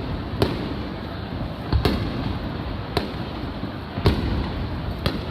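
Aerial firework shells bursting in a fireworks display: about five sharp bangs, roughly one a second, over a steady background rumble.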